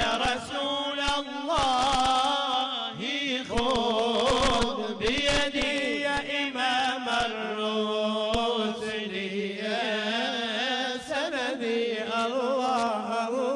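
Arabic devotional chant in praise of the Prophet Muhammad, sung in long wavering, drawn-out notes over a steady low tone.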